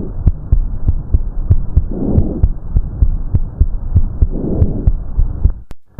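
Stethoscope recording of normal lung sounds over the chest: soft breath noise swelling about every two seconds, with the heartbeat beating steadily underneath. It stops shortly before the end.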